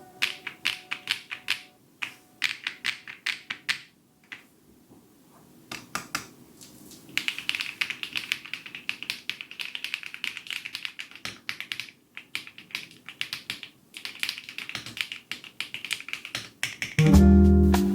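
Typing on a Luminkey Lumino75 mechanical keyboard with Luminkey Astral switches: rapid key clicks in runs, with a pause of about two seconds early on and a faster, denser stretch in the middle. Guitar music comes in just before the end.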